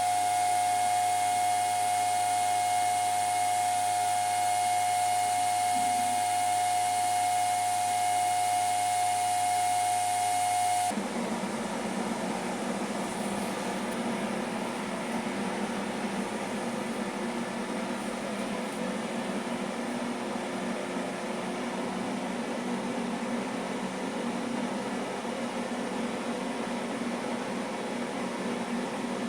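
ASIC crypto-mining rig cooling fans running steadily, with a strong high fan whine over rushing air. About eleven seconds in, the sound switches abruptly to a slightly quieter, lower rushing fan noise without the whine, a second miner setup.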